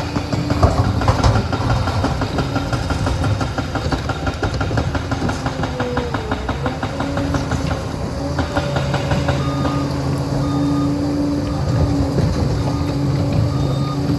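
Liebherr PR 746 crawler dozer working: its diesel engine runs steadily under a dense, even clatter of steel tracks, with a few tones that rise and fall.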